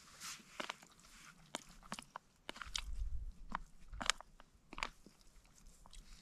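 A person quietly chewing a mouthful of rehydrated curry and rice, with small clicks of a long-handled spoon against a foil food pouch.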